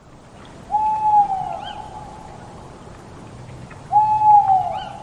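An owl hooting twice, about three seconds apart. Each hoot is a held note that drops in pitch at its end, with faint higher chirps around each call.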